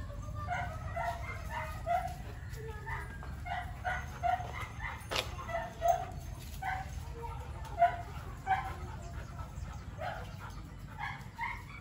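Dogs at play giving a string of short, high yips and barks, about two a second, with one sharp click about five seconds in.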